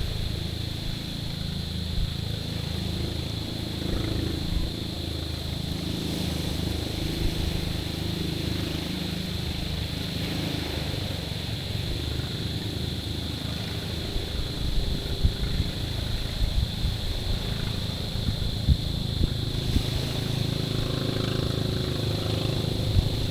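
Small waves washing over a stony shore, with wind buffeting the microphone and a low, steady drone underneath. A few louder surges come in the second half.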